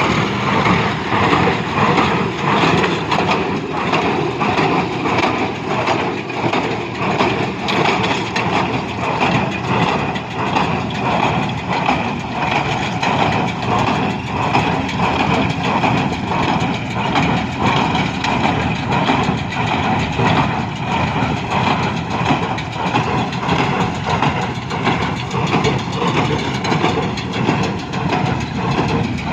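A John Deere 5105 tractor's three-cylinder diesel running steadily under load while it drives a New Holland BC5060 small square baler. The baler adds a regular mechanical beat, about two a second.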